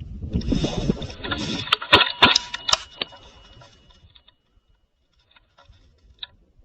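A low rumbling noise, then a quick run of about five sharp clicks roughly a third of a second apart, trailing off into a few faint ticks near the end.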